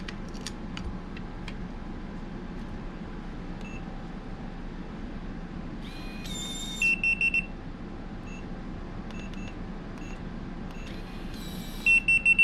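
Latch.it electronic RV door lock beeping. Single short beeps sound as the touch keypad is pressed. Twice, about six seconds in and again near the end, a short electronic jingle is followed by four quick high beeps.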